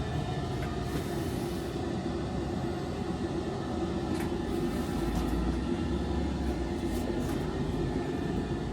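Steady hum and rumble of an electric tram heard from its driver's cab, with a few faint clicks. A deeper low drone swells in about halfway through and fades out before the end.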